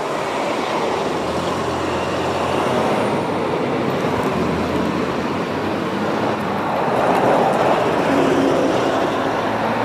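Motor vehicle running on the road in traffic: a steady engine hum under road noise, a little louder near the end.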